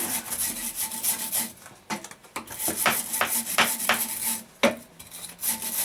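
Wire brush scrubbing a forged 10 mm square steel bar in repeated scraping strokes.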